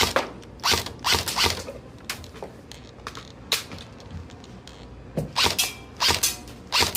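Airsoft BB gun firing single shots, about eight short sharp pops at uneven intervals.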